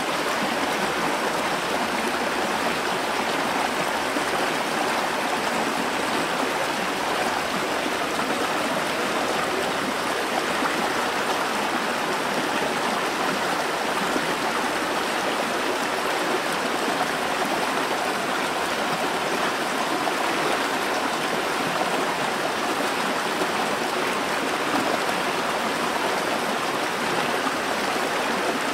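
A small stream cascading over rocks into a pool: a steady, unbroken rush and splash of falling water.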